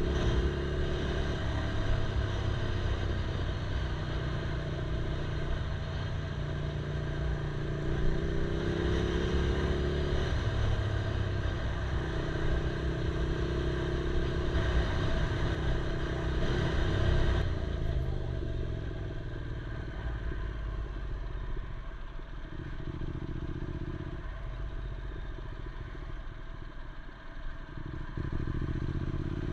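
Yamaha R6 inline-four motorcycle engine running while riding, its pitch rising and falling in stretches as it pulls through the gears. A hiss over the engine drops away suddenly a little over halfway through.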